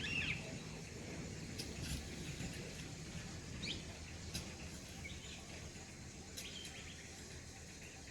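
Birds giving short chirps, scattered a few at a time, over a steady low background rumble.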